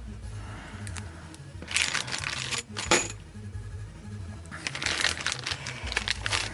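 Small metal bolts and nuts clinking as they are handled and set down: a few clinks, a sharp one about three seconds in, then a denser run of clattering in the last two seconds.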